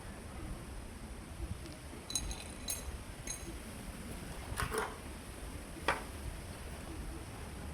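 A few light clicks and then two knocks from the casing and parts of a standing-unit air conditioner being put back together, over a low background hum.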